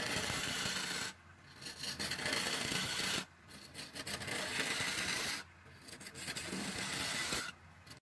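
Hand-held turning tool cutting into the inside of a small wooden pot spinning on a wood lathe, a harsh scraping hiss as shavings come off. Four cutting passes of about two seconds each, with brief pauses between, over the lathe's low steady hum.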